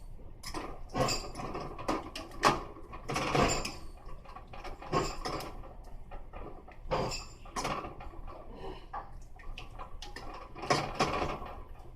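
Irregular clinks and knocks of dishes, pans and utensils being handled, a few of them sharper and louder.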